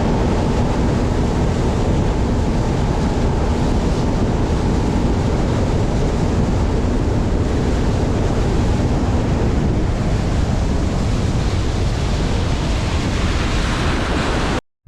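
Steady, loud wind noise buffeting the microphone, with rushing water, as from a boat running across open water; it starts and stops abruptly.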